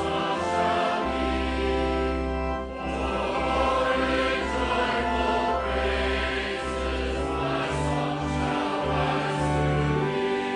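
Congregation singing a hymn together in unison and harmony, held notes over long, steady low bass notes, with a brief pause between lines about two and a half seconds in.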